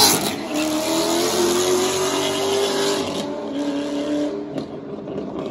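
Street-racing cars running at full throttle down the road away from the listener, their engine note holding a steady pitch while it fades into the distance.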